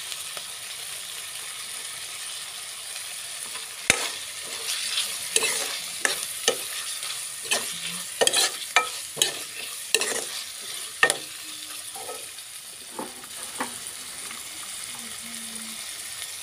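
Ground meat and red pepper strips sizzling in a nonstick wok. About four seconds in, a metal spoon starts stirring, with a sharp knock and then repeated scrapes and taps against the pan that thin out near the end.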